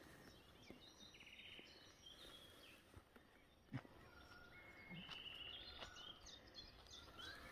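Faint birds chirping in short, high calls over a low background hiss, with one sharp click about halfway through.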